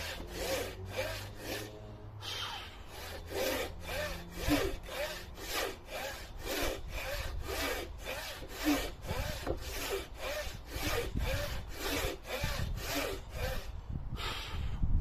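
Frame saw ripping a board along the grain: steady rasping hand strokes, about three a second, with two short pauses, one about two seconds in and one just before the end.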